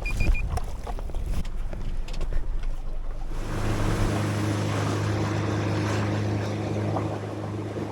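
A few knocks and clatter, then about three seconds in the boat's motor comes up to a steady run as the boat gets underway, with a rushing of wind and water.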